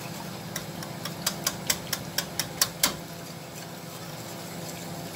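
A spoon stirring thickening milk-and-starch cream in a pot on the stove, clicking against the pot about four times a second for a couple of seconds, over a steady hum.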